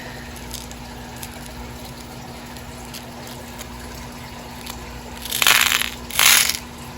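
Two short crinkling rustles of plastic bead packaging being handled, a little over five seconds in and again about a second later, over a steady background hum.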